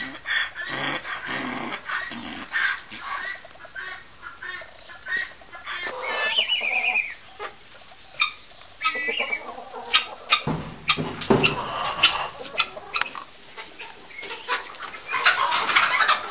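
A flock of domestic hens clucking and calling, in many short calls throughout, with a few sharp knocks about ten seconds in.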